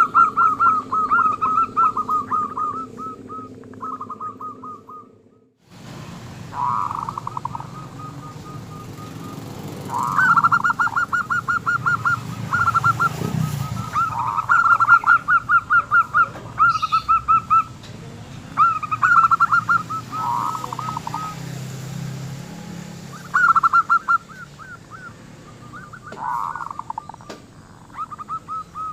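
Zebra dove (perkutut) cooing: a small, hoarse 'kerok' voice repeating quick phrases of rapid pulsed notes, about one to two seconds each, with short pauses between. The calling stops briefly a little over five seconds in, then picks up again.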